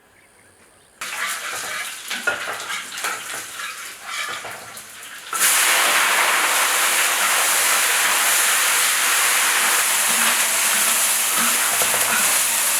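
Cooking sounds: an irregular sizzling clatter, then from about five seconds in a loud steady hiss.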